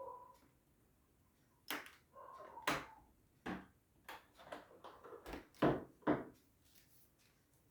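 Knocking and banging from the downstairs neighbours' kitchen: about nine sharp, irregular knocks over some four and a half seconds, starting a couple of seconds in, the loudest two near the end.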